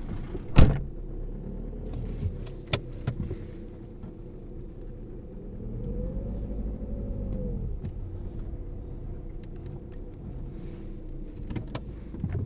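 Volkswagen Polo 1.6 TDI four-cylinder diesel engine running steadily near idle, its pitch rising and falling once in the middle. A loud sharp knock about half a second in and a few lighter clicks later.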